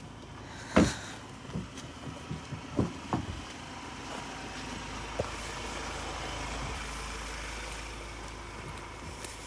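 A pickup truck door slammed shut about a second in, then a few light footsteps on a dirt track and a steady low rumble near the middle.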